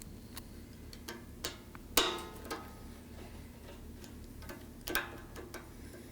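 Light, irregular metal clicks and taps as a snap ring is worked into the groove at the top of a tire carrier spindle; the sharpest click comes about two seconds in.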